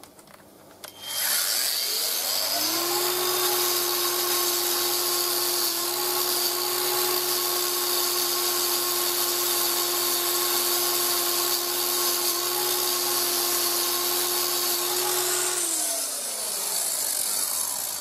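Angle grinder with a wire wheel spins up with a rising whine, then runs steadily while the wire wheel brushes a metal engine bearing cap clean, giving a loud hiss over the motor whine. Near the end it is switched off and the pitch falls as it winds down.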